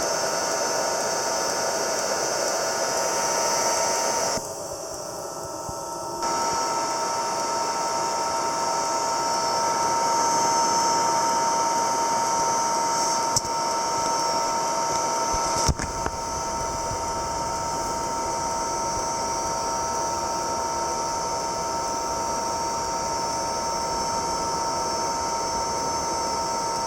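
Derrick electric shoe dryer's blower running: a steady whirring hiss with a high whine. It dips briefly about four to six seconds in, and a click about sixteen seconds in is followed by a deeper rumble under the same whine.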